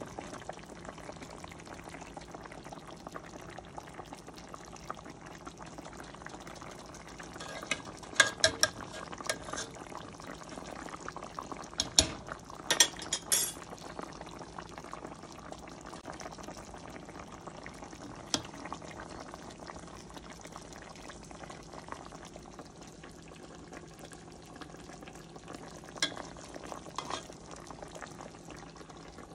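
Coconut-milk fish stew simmering in a pot, a steady bubbling hiss, with a few clinks and scrapes of a spoon against the pot, loudest about twelve seconds in.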